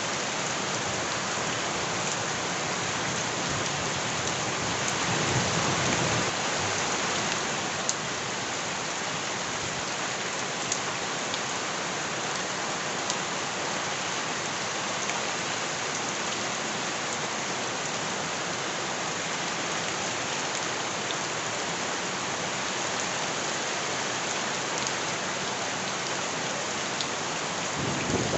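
Steady rain falling on surfaces, an even hiss with scattered drop ticks, and a low rumble swelling about five seconds in.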